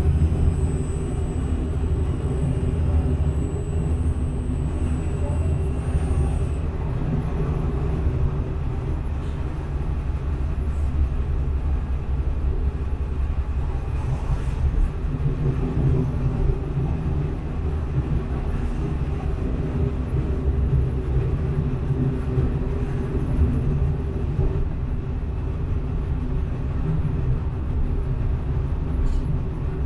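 Prague tram running along its track, heard from on board: a steady low rumble of wheels on rail and running gear, with a faint high whine over it for the first six seconds or so.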